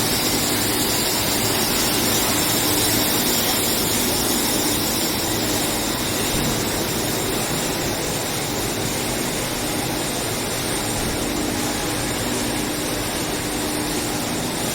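Steady industrial machinery noise from a round steel bar induction heating furnace line: an even, unbroken hiss with a faint low hum.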